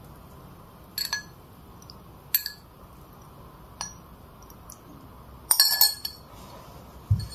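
Paintbrush clinking against a paint dish while mixing white and mineral-green paint with water. There are sharp, ringing clinks about a second in, at two and a half and four seconds, and a quick cluster of them near six seconds, then a single low knock near the end.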